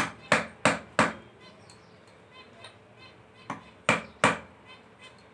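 Sharp metal knocks as the fork tube is driven down to seat a new fork oil seal in a motorcycle's front fork lower leg, with the old seal used as the driver. Four quick knocks in the first second, then two more about four seconds in.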